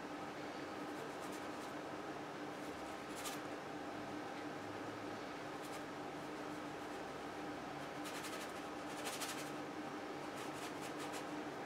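Flat paintbrush stroking and dabbing paint onto a stretched canvas: short scratchy strokes, several of them close together in the second half, over a steady faint hum.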